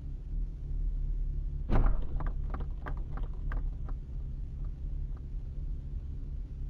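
A reversing Toyota van's rear bumper strikes the front of the car carrying the dashcam with one sharp crunch, heard from inside the struck car, followed by a quick run of sharp knocks for about two seconds and two fainter ones after. A steady low hum runs underneath.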